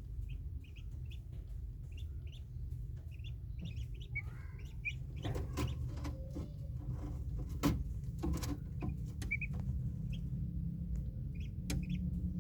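Newly hatched Muscovy ducklings peeping: short, high peeps repeated through, often in quick pairs, over a steady low hum. A run of knocks and clicks falls in the middle, the loudest one about eight seconds in.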